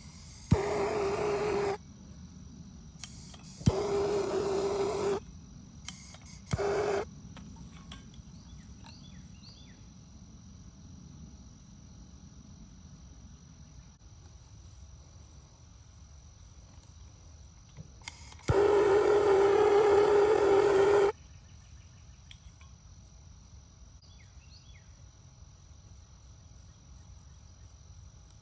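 Handheld torch lit with a click and fired in short blasts of hissing flame: three brief bursts in the first seven seconds, then a longer one of about two and a half seconds. The torch is heating half-inch poly drip tubing to soften it for fitting T connectors. Crickets chirp faintly in the gaps.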